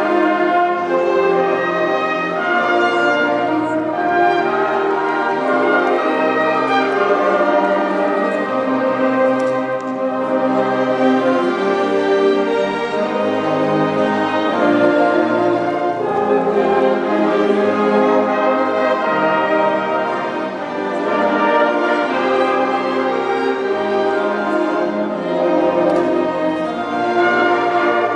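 Symphony orchestra playing live, strings and brass holding long sustained chords, easing a little softer about three-quarters of the way through.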